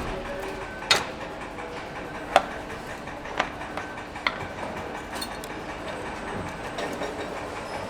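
Engine assembly-line factory noise: a steady machinery hum with a few sharp metallic clacks and knocks, the loudest about two and a half seconds in.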